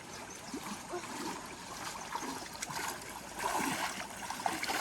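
Running water flowing and splashing, louder and splashier from about three and a half seconds in.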